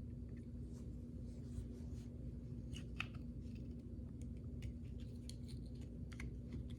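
Faint scattered clicks and light rubbing of plastic power-tool housing parts being handled, over a steady low hum.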